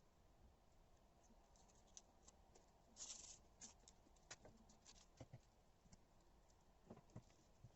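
Quiet close-up handling of washi tape: a brief rasp about three seconds in, as of tape pulled off the roll, among scattered light ticks and crinkles of the tape and paper.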